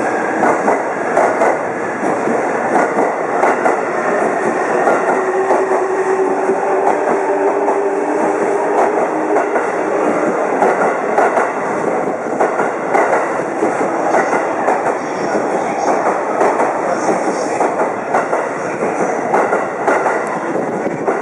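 E531 series electric train running past close along the platform, its wheels clattering over the rail joints. A steady tone sounds for a few seconds midway.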